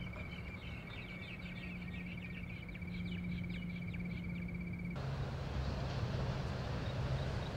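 Outdoor ambience: a steady, high, pulsing chirp with quick animal or bird chirps over it and a low steady hum. About five seconds in it cuts to a louder, even rushing noise with a lower hum.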